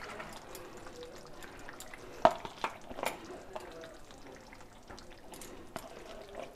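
Hot chicken curry in a steel kadhai faintly sizzling on its own heat with the gas off, with a few light clicks and taps over it, the sharpest about two seconds in.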